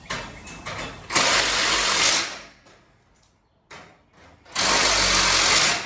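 Power driver driving screws to fasten hinges onto steel garage door panels, in two runs of about a second each, with small knocks of handling in between.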